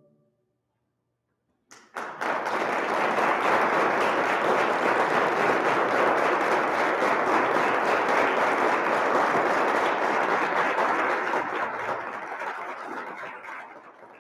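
The last sung chord of a choir dies away, then after a short silence an audience breaks into applause about two seconds in, steady and then fading near the end.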